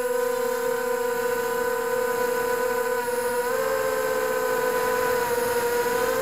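Electric motors and propellers of an FPV multirotor drone whining steadily as it flies, heard from on board. The pitch rises a little about three and a half seconds in, then slowly eases back down.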